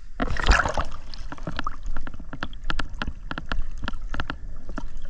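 Water rushing and splashing around the camera as it breaks the surface, about half a second in. It is followed by a long run of sharp, separate clicks and ticks of water around the camera.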